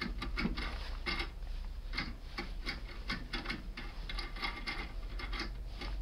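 Quick, irregular metallic clicks and ticks of a foil impression lockpick being rocked and turned inside an Iseo R7 cylinder lock, the foil on the tool being pressed into shape against the lock's pins.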